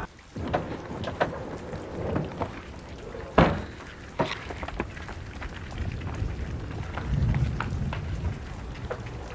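Irregular scuffs and knocks of someone hurrying out of a car and moving fast, over a steady hiss, with one sharp bang about three and a half seconds in.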